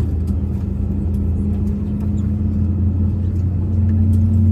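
Airbus A320's engines running, heard as a steady low rumble and hum inside the cabin. About three and a half seconds in, the hum steps slightly higher in pitch and grows a little louder.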